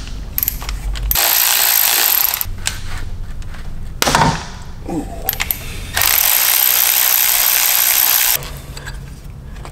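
A power tool on a 12 mm socket spinning off the EGR valve's two retaining nuts, in two runs of about one and a half and two and a half seconds with a pause between them. Small knocks and clatter of the socket and tool come between the runs.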